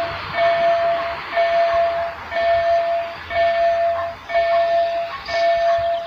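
Electronic warning signal of a level crossing (EDG-2000 with Tonsil horn loudspeakers) sounding while the crossing is closed for an approaching train: a steady beep about a second long, repeating with short breaks, over a steady rushing noise.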